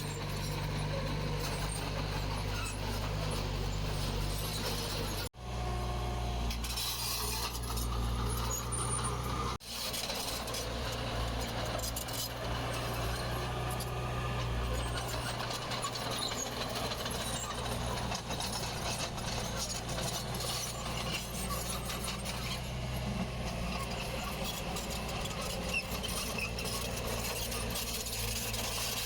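Diesel engines of heavy earthmoving machinery running steadily with a low drone. The sound drops out abruptly and briefly twice, about five and nine and a half seconds in.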